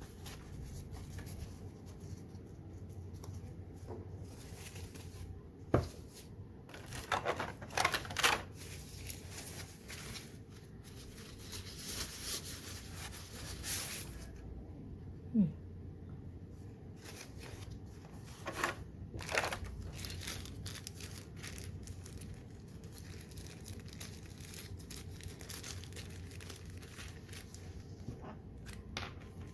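Product packaging being handled and opened: plastic and paper crinkling and tearing in scattered bursts, with a sharp click about six seconds in and longer tearing stretches later on.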